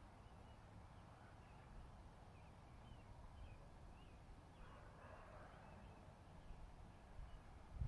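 Faint outdoor ambience: a low, steady rumble with scattered short, faint bird chirps.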